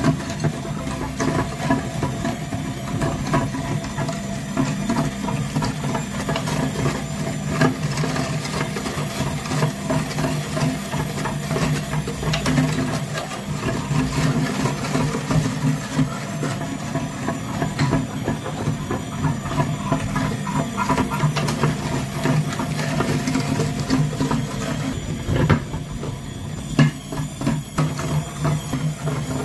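Electric meat grinder running steadily under load, its motor humming while dense irregular crackling and clicking comes from material being crushed through it.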